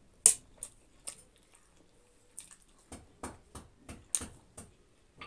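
Close-miked wet chewing and lip smacking on a mouthful of spicy instant noodles: a string of short, sharp, wet clicks, the loudest about a quarter second in.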